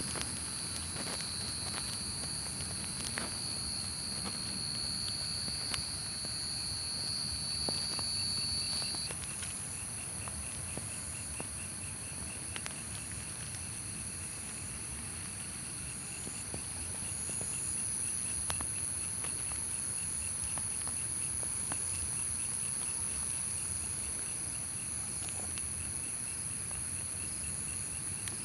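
Night insect chorus: a steady high-pitched cricket trill runs throughout. A second, lower insect drone stops about a third of the way through, and a faint rapid pulsing chirp follows. Occasional soft footsteps and clicks are heard.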